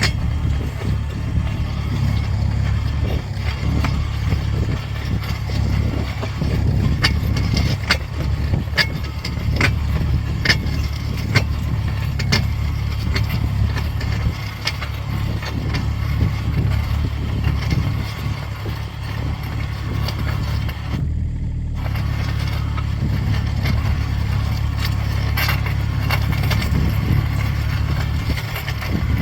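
Kubota mini excavator's diesel engine running steadily, with scattered sharp clicks and knocks over it, most of them between about a quarter and a third of the way through.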